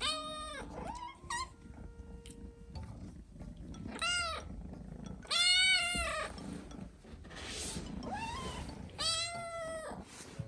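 Hungry kitten meowing loudly and insistently for food, with about four long, arching calls and a few shorter ones between them.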